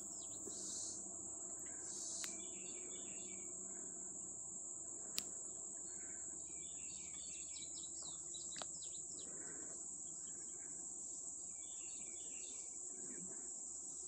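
Steady high-pitched drone of insects, with short bursts of bird chirps a few times and a single sharp click about five seconds in.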